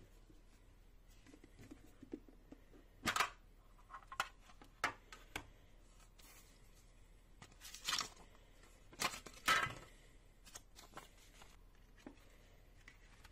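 Handling noise from a small metal tin with a foam lining: scattered clicks, knocks and short scrapes as its lid is pulled off and set down and the contents are handled, loudest about three seconds in and again around eight to ten seconds.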